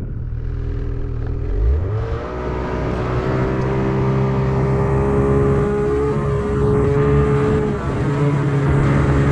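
Snowmobile engine under hard throttle while hauling a heavily loaded cargo sled up a snowy slope. The engine revs up about two seconds in, then holds high and steady with a brief dip near the end.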